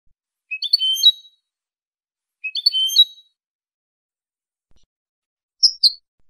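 European goldfinch song: a short, high twittering phrase of quick chirps, given twice about two seconds apart, then near the end a quick two-note call.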